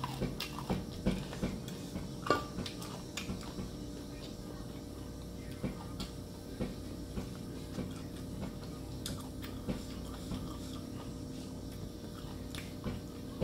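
A person eating close to the microphone: chewing and lip smacks, with scattered small clicks and taps of fingers and food against a ceramic bowl, busiest in the first few seconds, over a faint steady hum.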